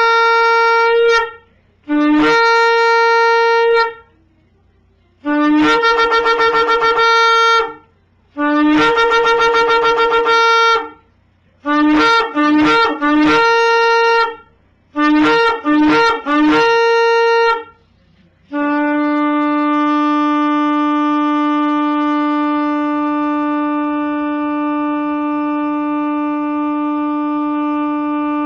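Shofar blowing a series of blasts, each starting on a low note and jumping up to a higher one. Some blasts are held, two waver rapidly, and two are broken into three short notes. From about two-thirds of the way in, one long blast is held on the low note.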